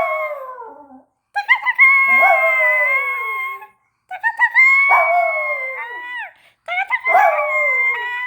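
Miniature poodle howling in long, drawn-out howls of about two seconds each with short pauses between them, set off by a loud high noise made with it, the pitch sliding down at the end of each howl.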